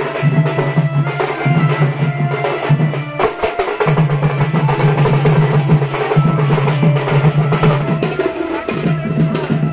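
Loud drum-heavy music with a deep repeating bass line; it drops out briefly about three seconds in.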